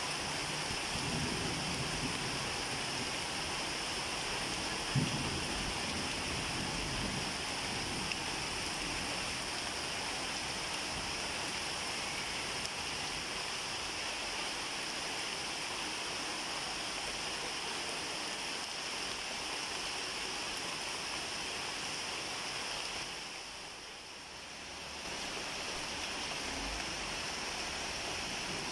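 Steady rain falling, an even hiss, with one short knock about five seconds in; the hiss briefly fades and comes back about three-quarters of the way through.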